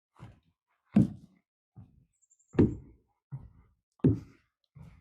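Footsteps thudding across a footbridge deck at a steady walking pace, about one step every 0.8 s, every other step heavier.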